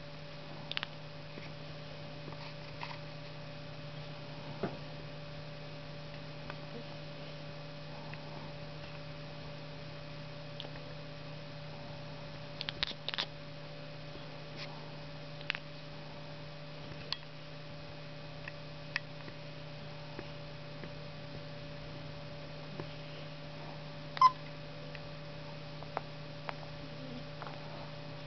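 A tabby house cat's occasional short squeaks and clicks over a steady low electrical hum. A cluster of them comes about halfway through, and the loudest, a brief high squeak, comes near the end.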